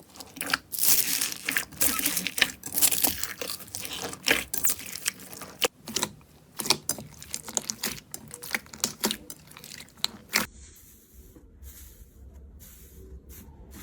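Slime being squeezed and pressed by hand, giving dense crackling and crunching pops. About ten seconds in, the sound cuts to a quieter, softer crackle.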